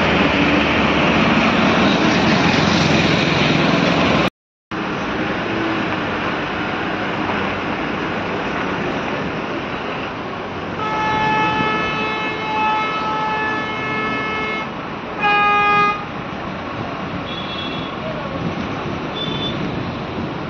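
Road traffic noise from a jammed line of trucks and buses, with a loud rushing noise for the first four seconds before the sound cuts out for a moment. About eleven seconds in a vehicle horn sounds for about four seconds, followed by a shorter, louder honk, with faint distant honks after.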